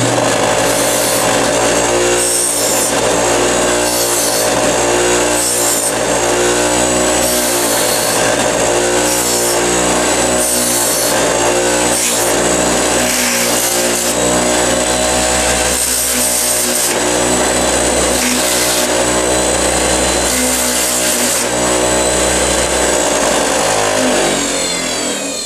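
Craftsman bench grinder running with a wire brush wheel, a punched steel lamellar plate pressed against it again and again to dull its sharp edges and strip off burrs: a steady motor hum with a burst of harsh scratching about every second. Right at the end the grinder winds down.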